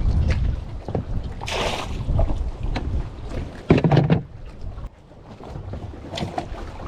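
Wind buffeting the microphone on a small boat, with scattered knocks, a brief hiss about a second and a half in, and a louder thud about four seconds in.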